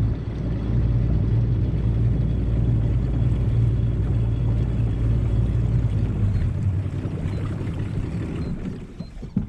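25 hp Yamaha outboard motor running steadily under way, easing off about two-thirds of the way through.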